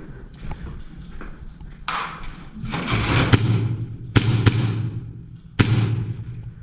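A handful of sharp knocks or clicks, about five in four seconds, over a rushing noise and a low steady hum that start about three seconds in and stop near the end.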